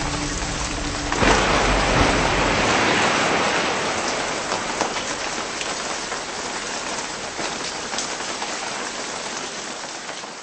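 Heavy rain: a dense, steady hiss with scattered drop ticks that swells suddenly about a second in, as a held music note ends, then slowly fades.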